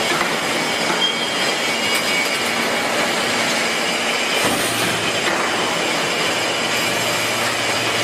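Hydraulic scrap metal baler at work, its press lid closing down on the load: a steady loud mechanical noise over a hum that drops to a lower pitch about four and a half seconds in.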